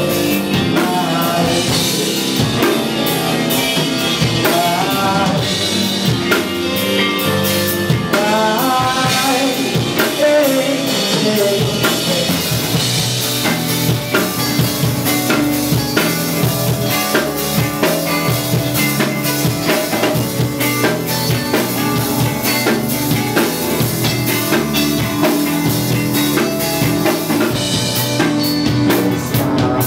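Rock band playing live: a drum kit with snare rimshots and bass drum keeping a steady beat under electric guitar and bass, with a guitar line bending and wavering in pitch about eight seconds in.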